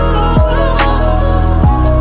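Background music: an electronic track with deep sustained bass and repeated drum hits.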